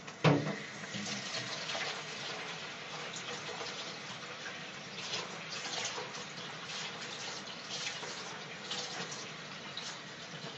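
Kitchen tap running into a plastic bowl in a stainless steel sink, with splashing as hands rub and rinse salted jellyfish strips in the stream. A sharp knock comes just after the start as the bowl is set down in the sink.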